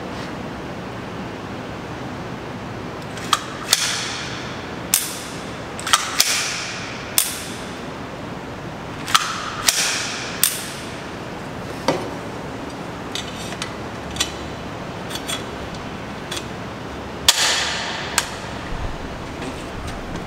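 Around twenty irregular sharp cracks and clacks from guns, some trailing a short echo, loudest in clusters about 4 s, 6 s, 10 s and 17 s in.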